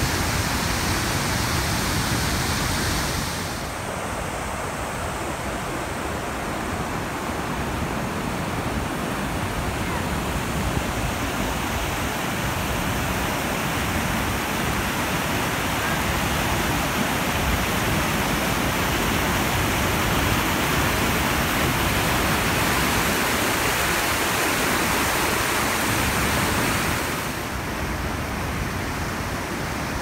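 Harajiri Falls, a wide 20-metre waterfall, and the churning rapids at its lip: a steady rushing of falling water. Its tone changes about three seconds in and again near the end.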